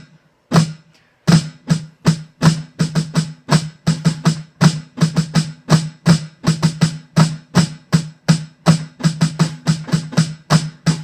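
Snare drum played slowly: a passage of flams, flam drags and triplets with accented and unaccented strokes, each hit sharp with the snares buzzing, the strokes closely grouped and uneven in spacing as the rhythm demands.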